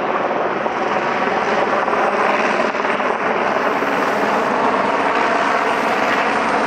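Helicopter in flight, a steady engine and rotor noise that holds at a constant loudness.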